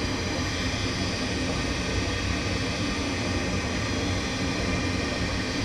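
Gas furnace fan motor running steadily with a low hum, as the furnace goes through its start-up before the burner lights.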